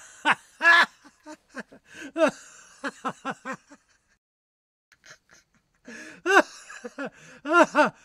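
A person's voice making quick runs of short wordless sounds, each rising then falling in pitch, with a pause of about two seconds in the middle.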